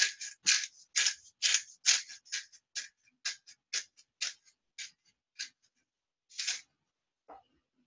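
Hand-twisted pepper grinder grinding black pepper in short, gritty strokes about two a second, slowing and stopping a little after halfway, with one last twist a second later.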